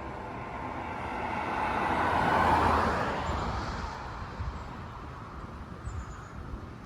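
A road vehicle driving past, its noise swelling to a peak about two and a half seconds in and then fading away.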